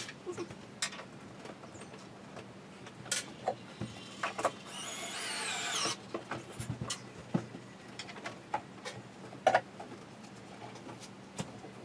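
Scattered knocks and clicks of chipboard furniture panels and shelves being handled and fitted during cabinet assembly. About five seconds in comes a shrill scraping squeal lasting about a second and a half.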